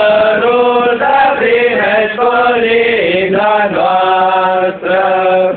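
A group of boys singing a Romanian Crai (Three Kings) Christmas carol in unison, in long held notes.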